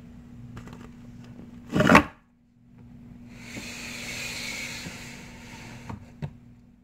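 Rustling and scraping with a few knocks, loudest in a brief, harsh scrape about two seconds in, followed by a soft hissy rustle and two sharp knocks near the end.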